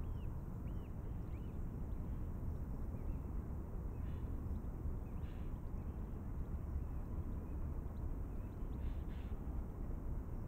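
Distant steam locomotive working hard, heard as a low steady rumble, with birds calling a few times over it.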